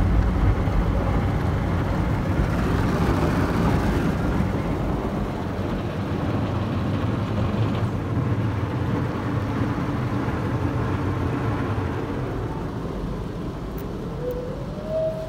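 WashTec SoftLine 2 car wash tunnel heard from inside the car: cloth brushes scrubbing the body and water spraying over the glass, a steady, dense wash noise that slowly grows quieter. A short rising whine near the end.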